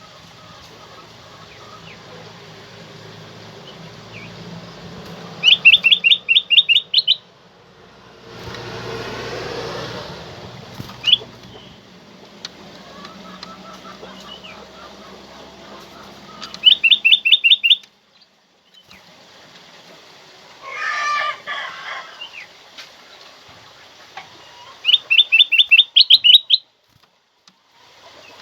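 Kutilang emas, a bulbul, calling three times, each a loud burst of about eight rapid repeated notes lasting about a second and a half. A softer, more varied call comes about two thirds of the way in, and a short rustling noise about a third of the way in.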